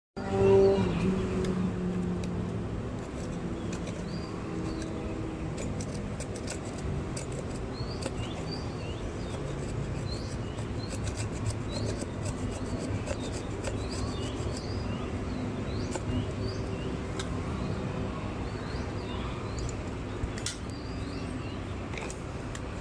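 Small birds chirping again and again over a steady low rumble, with a loud humming tone that fades away in the first couple of seconds.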